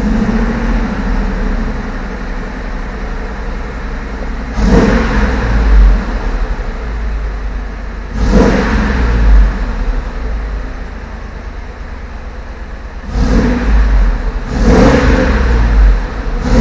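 Fuel-injected engine of a 1952 Ford F1 truck running right after its first start on new fuel injectors. It idles and is revved up briefly about four times.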